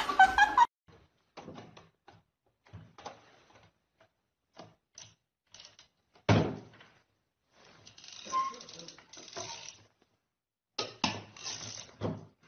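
Scattered knocks and clunks of a stainless-steel electric kettle being set down and lifted on its base beside an automatic water-pump tea maker. There is one loud thunk about six seconds in and a short stretch of noise a little later.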